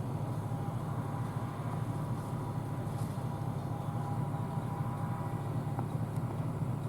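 John Deere combine harvester running steadily while harvesting soybeans: a constant low rumble with a faint thin whine above it.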